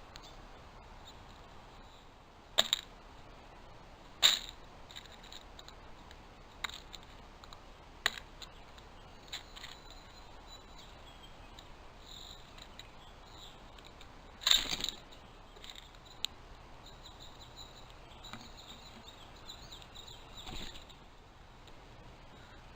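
A few sharp clicks and knocks, three of them much louder than the rest, over a steady faint hiss, with faint short high chirps in between.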